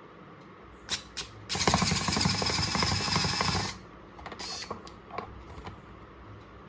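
A 4V cordless electric screwdriver's motor and gearbox run for about two seconds, after a couple of handling clicks, followed by a few light clicks. The screw does not come out; the user thinks a bigger bit is needed.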